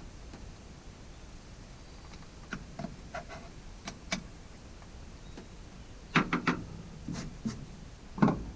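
Handling clicks and knocks from the chainsaw's bar, chain and housing as parts are taken off and set down: scattered light clicks, a quick run of three sharper knocks about six seconds in, and one louder knock near the end.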